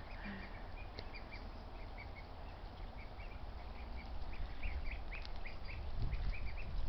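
Young Pekin and Welsh Harlequin ducklings giving many short, high calls, scattered at first and coming thicker in the second half. A low rumble grows near the end.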